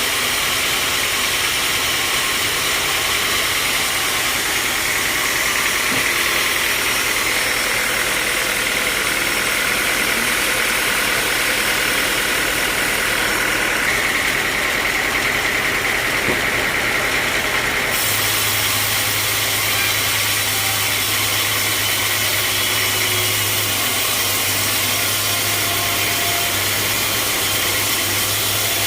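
Sawmill machinery running steadily with an engine-like drone. The sound changes abruptly about 18 seconds in, when a steady low hum comes in.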